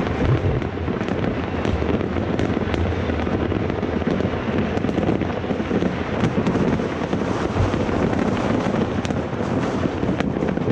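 Many fireworks going off at once: a continuous din of overlapping bangs and crackles, with sharper cracks standing out now and then.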